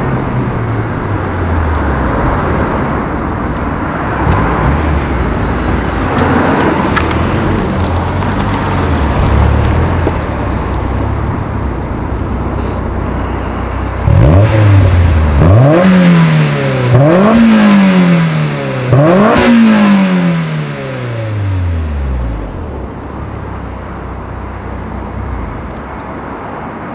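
Exhaust of a 2006 Honda S2000 (AP2) 2.2-litre four-cylinder through an ASM I.S.Design silencer kit. The engine runs at low revs with small rises and falls, then is blipped three times about halfway through, each rev climbing sharply and dropping back. It then settles to a steady idle.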